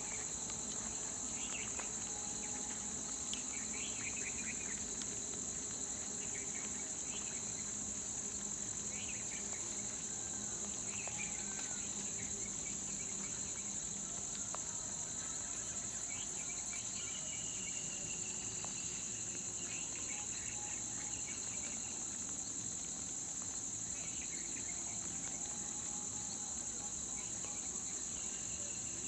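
A steady, high-pitched drone of a chorus of insects, with scattered short chirps over it.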